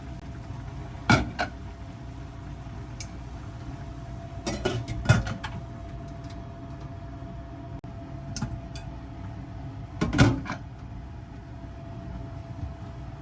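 Kitchen dishes and utensils clinking and knocking in short bursts, loudest about a second in, around five seconds in and around ten seconds in, over a steady hum with a faint constant tone from a running appliance.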